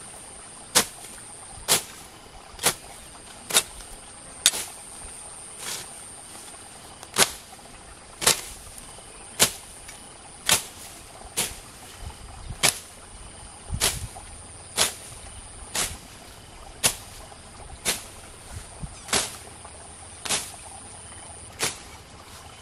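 Long-handled blade slashing through tall grass, about one sharp swishing cut a second in a steady rhythm.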